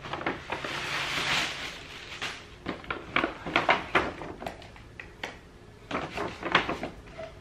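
Tissue paper and a gift bag rustling and crinkling as gifts are pulled out by hand: a long rustle in the first couple of seconds, then a string of short crinkles and small taps as the items are handled.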